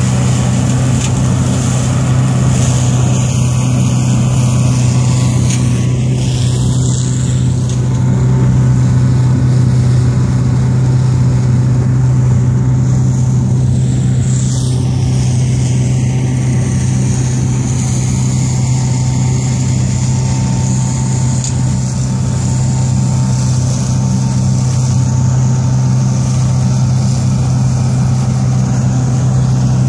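A tractor driving an OMARV TER 190 Extra mower-collector as it cuts and gathers wild grass: a steady machine drone of engine and cutting rotor, with a constant low hum that stays at one pitch and level.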